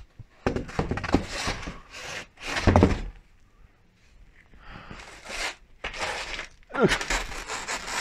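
Knocks, scrapes and rattles as bicycle wheels and other stored things are shifted about among wooden roof rafters, in irregular bursts with a short lull about three seconds in.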